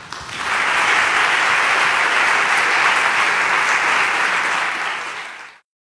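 Audience applauding, a dense steady clapping that swells up within the first half second, eases a little, then cuts off suddenly near the end.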